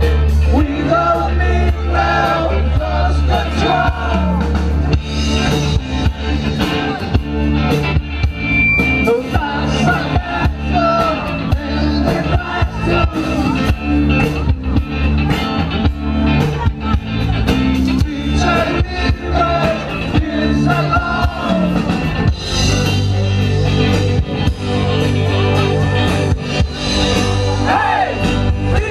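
Live rock band playing: a singer over bass guitar, electric guitar and a steady drum beat.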